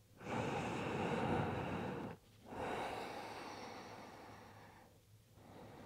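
A woman breathing deeply and slowly close to the microphone: two long breaths of about two seconds each, the second one fading away, then a fainter breath near the end.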